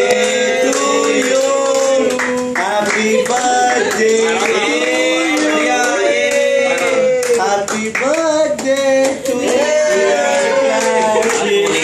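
A small group of people singing a celebration song together, with hand-clapping.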